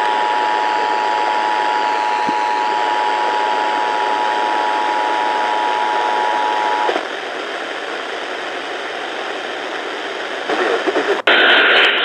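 The two-tone Emergency Alert System attention signal received on an FM radio through heavy static hiss, marking the start of a Required Monthly Test. The tones stop about seven seconds in, the hiss carries on, and near the end the sound cuts off sharply to something louder.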